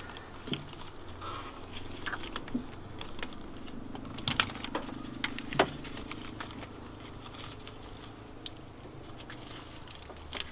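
Fuel injector wiring connectors being unplugged by hand: a few scattered small plastic clicks and rattles over a faint low hum.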